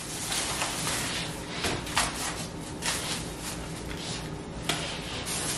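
Thin plastic grocery bag rustling and crinkling as it is handled, with a few sharper crackles.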